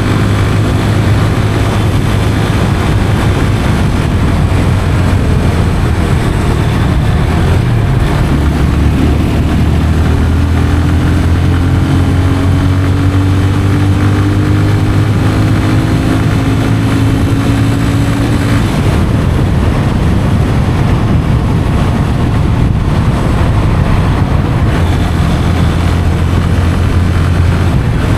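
Yamaha FZ 25's 249cc single-cylinder oil-cooled engine with stock exhaust, running steadily under way. Its note shifts lower about eight seconds in, climbs slowly until about eighteen seconds in, then changes again.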